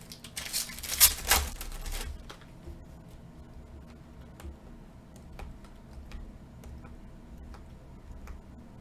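Loud rustling and crinkling as the cards and pack wrapper are handled, lasting about two seconds. Then a run of faint sharp clicks as glossy Mosaic trading cards are slid one behind another through the stack.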